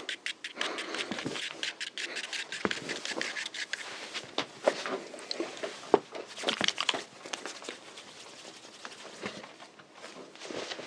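Foley of cloth rustling and footsteps, with small clicks and clatters of objects handled at a counter. It is busy through the first seven seconds or so, then thins to scattered soft rustles.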